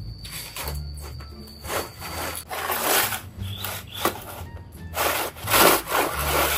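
A large woven bamboo tray scraping and rubbing over granite steps as it is dragged, in several separate rasping strokes, the loudest in the second half. Background music plays underneath.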